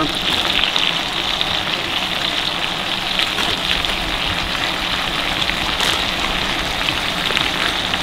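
Vegetables and meat sizzling in hot butter and oil in a cast-iron pan on a camp stove: a steady hiss dotted with many fine crackles.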